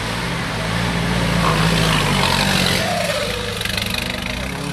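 Modified off-road 4x4's engine running under load as it pulls through a muddy rut, growing louder about a second and a half in, with added hiss at its loudest.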